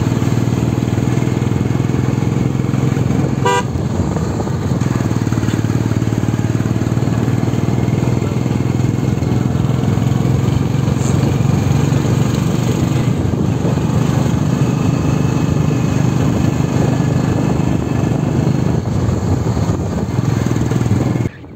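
A vehicle's engine running steadily while driving, with one short horn toot about three and a half seconds in. The sound cuts off suddenly just before the end.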